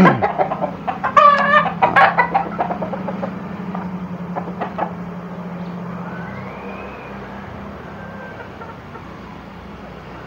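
Game-fowl roosters in a yard: one crows briefly about a second in, followed by scattered clucks. A steady low hum runs underneath and fades out after about seven seconds.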